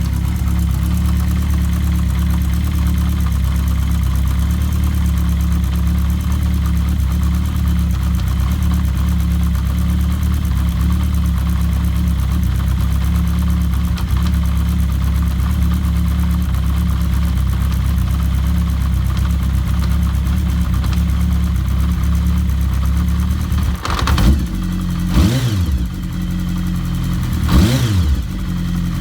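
Kawasaki GPz750 Turbo's air-cooled inline-four engine idling steadily, with the fast mechanical rattle of a noisy cam chain. Near the end the throttle is blipped three times, each rev rising and falling quickly.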